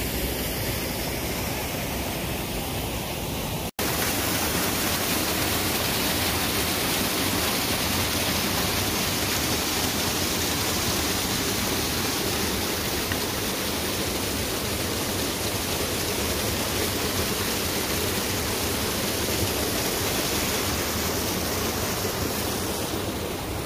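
River rapids rushing steadily over and between rocks, with a brief cut to silence about four seconds in.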